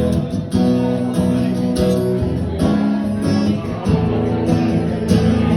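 Instrumental break in a country song: guitar strumming chords in a steady rhythm, without vocals.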